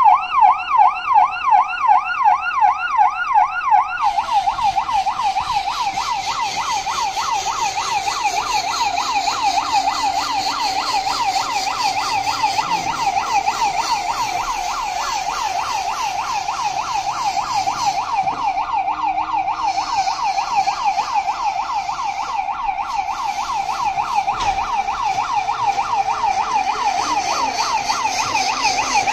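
Electronic siren of a miniature remote-control fire engine model wailing in a fast, even up-and-down sweep. About four seconds in, the wail quickens and a faint hiss joins it.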